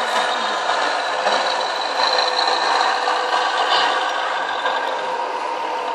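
Scale RC Scania 140 truck's sound module playing a steady V8 diesel idle.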